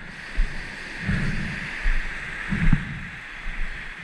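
Underwater sound of a scuba diver breathing through a regulator: a steady hiss of the inhale that swells about a second in, and short low bubbling bursts from the exhaled air.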